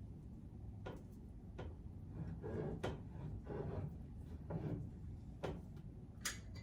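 Canning jars being handled: a few light clicks and knocks spread out, with soft rubbing and scuffing in the middle, as glass jars are wiped and fitted with metal lids and rings.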